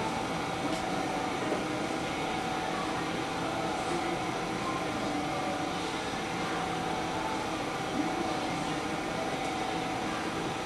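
Steady room-ventilation hum with one steady mid-pitched tone running through it.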